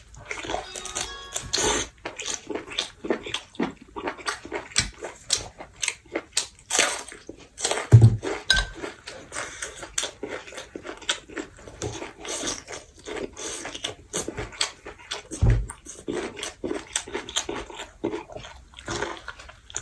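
Close-up chewing and crunching of food, with many irregular small clicks and mouth smacks and a couple of dull thumps.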